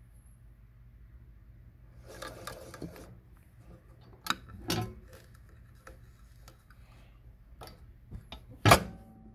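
Hands working at a blind-hem sewing machine and its cloth: a rustle about two seconds in, then a few sharp clicks and knocks of the machine's parts, the loudest near the end, over a low steady hum.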